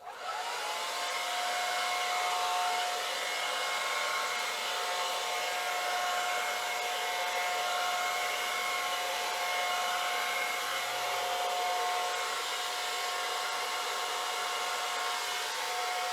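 Handheld blow dryer running steadily with a whine over its rushing airflow, switched on at the start and held on throughout, blowing wet acrylic paint across a pour.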